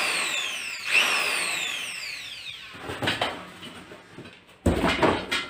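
Corded electric drill triggered briefly twice, each time spinning up and then coasting down with a falling whine. It is followed by knocks and a thump as the drill is set down on a cardboard box.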